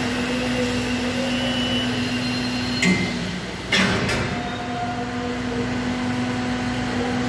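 Large hydraulic deep draw press running with a steady, even hum, broken by three sudden sharp bursts of noise between about three and four seconds in.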